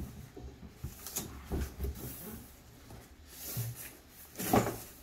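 White cardboard box being handled and turned over on a table: scattered soft knocks and rubbing of cardboard, with one louder brief noise about four and a half seconds in.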